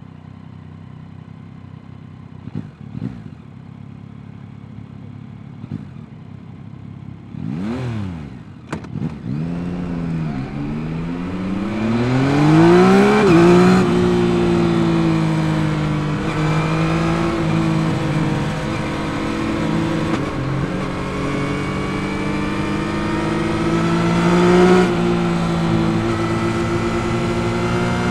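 Yamaha MT-09's 889 cc CP3 inline-three engine idling for several seconds, then blipped on the throttle a few times. It revs up as the bike pulls away, drops in pitch at an upshift about halfway through, and then runs steadily at part throttle.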